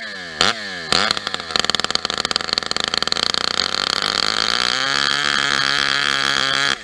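Chainsaw revving, then running at full throttle as it cuts down into a large log. About five seconds in the engine note drops a little and holds steady under the load of the cut.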